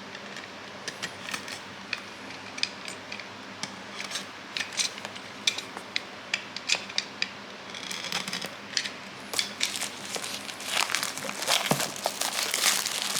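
Product packaging being handled and opened by hand: scattered sharp clicks and taps, then denser crinkling and rustling over the last few seconds.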